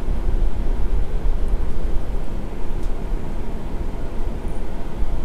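A steady low rumble with a hiss above it and no distinct knocks or clicks.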